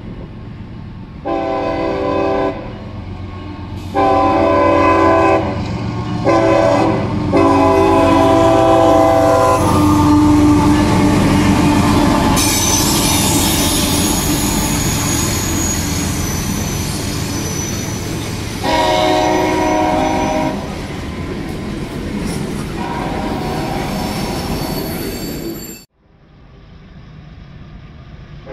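A freight locomotive's horn sounds the grade-crossing signal, long, long, short, long. Then the train passes close with a loud rumble and rail and wheel noise, and the horn blows twice more. The sound cuts off suddenly near the end.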